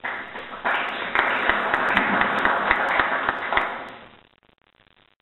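Audience applauding in a hall: a round of hand-clapping that starts a moment in and dies away after about three seconds.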